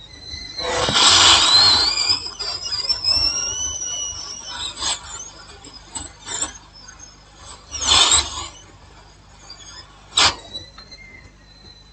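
Small tools scraping and squeaking on a laptop circuit board during the swap of a surface-mount capacitor. A loud rasping scrape about a second in carries a thin, rising squeal, followed by two shorter scrapes later on.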